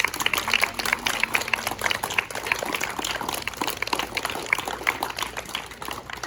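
Applause: many hands clapping at once in a dense patter, stopping near the end.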